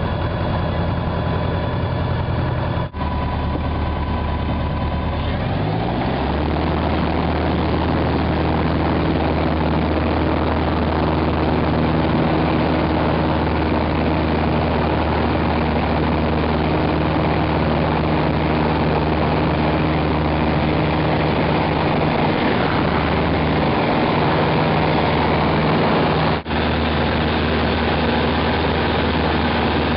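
Small single-engine piston airplane's engine and propeller, heard from inside the cockpit. The engine runs at low power, then about six seconds in it rises in pitch as the throttle is opened for takeoff. It then runs steadily at high power through the takeoff roll and climb-out.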